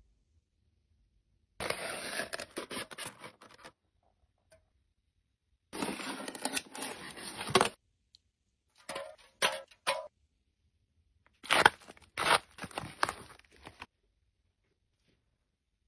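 Close-up handling of paper and packaging: four separate bursts of rustling and crinkling with sharp clicks in them, and quiet gaps between.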